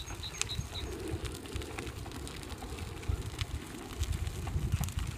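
Power wheelchair rolling along a gravel path: a low rumble of tyres and motor on the grit, with scattered small crunches and clicks, swelling louder in the second half. A rapid series of high chirps, about four a second, stops about a second in.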